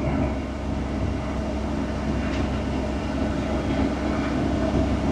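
Skid steer engine running steadily while it drags a load of felled trees and brush.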